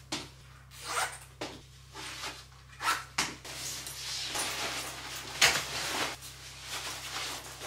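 Rustling and swishing of a padded winter coat as it is pulled off a coat-rack hook and put on, a string of separate swishes with the loudest about five and a half seconds in.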